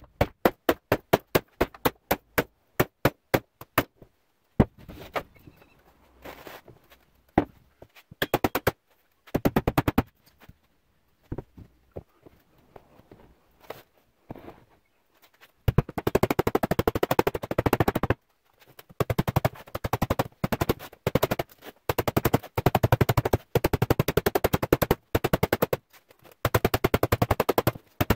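Mallet blows on the edge of an aluminium door skin, struck against a hand dolly to fold it over the steel door frame. Separate knocks about three a second at first, then from about 16 seconds in, quick runs of taps in bursts of a second or two.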